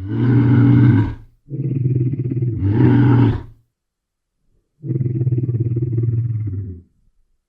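Bear roaring and growling: three long, rough, low calls with short pauses between them, the first about a second long and the next two about two seconds each.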